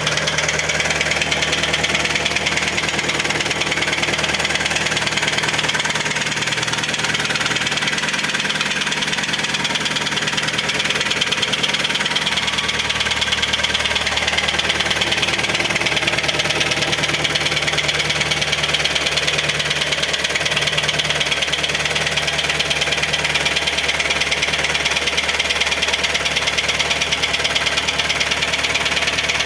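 Hyundai ix35's G4KD 2.0-litre four-cylinder petrol engine idling steadily after a cold start, with very strong knocking that the owner places in the piston area.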